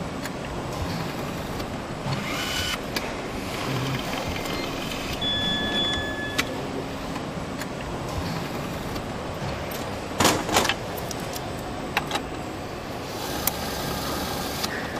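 Car assembly line ambience: a steady mechanical background noise with scattered metallic clicks and clanks of parts and tools being handled, the loudest a pair of clanks about ten seconds in. A brief high steady tone sounds around five seconds in.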